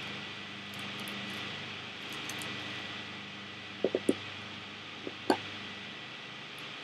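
Light handling taps of a small resin doll and its plastic accessories: three quick taps about four seconds in, then a sharper knock a little over a second later, over a steady background hiss and hum.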